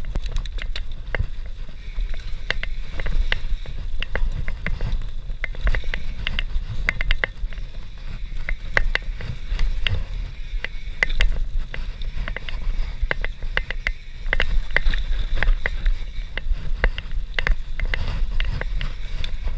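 YT Industries Capra CF enduro mountain bike descending a rough forest trail at speed, heard through an on-board camera: a steady low rumble of tyres and wind, with frequent sharp clicks and rattles from the bike over the bumps.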